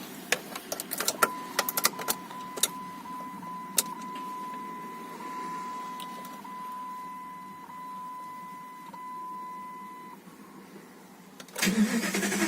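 A run of clicks, then a steady high tone that lasts about nine seconds and stops. About a second before the end, the starter of a Jeep Grand Cherokee WJ starts cranking the engine with a fast, even chugging, the engine not catching.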